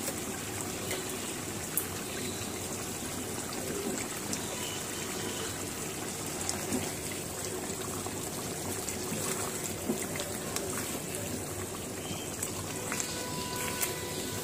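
Meat curry boiling in an open karahi, a steady bubbling and sputtering, with a few light clicks of a plastic spatula stirring against the pan.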